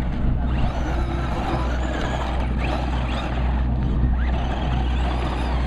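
Radio-controlled short-course truck driving and spinning its wheels on loose dirt, over a steady low rumble.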